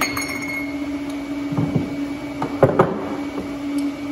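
Metal tube bends clinking and knocking on a workbench as they are picked up and fitted together: a ringing clink at the start and a few sharp knocks about two-thirds of the way in, over a steady machine hum.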